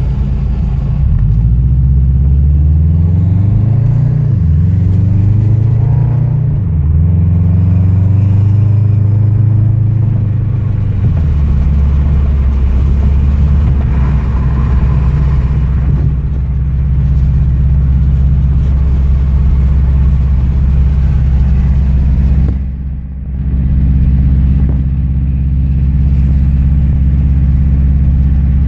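Car engine and exhaust drone heard from inside the cabin, which the uploader takes for the noise of an exhaust leak. Its pitch rises and falls several times through the first ten seconds or so, then settles into a steady low drone, with a brief drop in level a little past twenty seconds.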